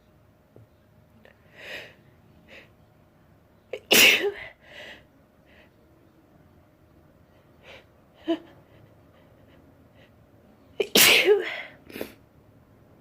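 A person sneezing twice, loudly, about four seconds in and again about eleven seconds in, with quieter breathy sounds between the sneezes.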